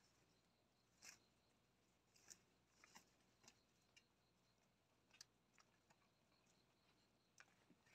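Near silence broken by about a dozen faint, irregularly spaced small clicks and ticks from puppies.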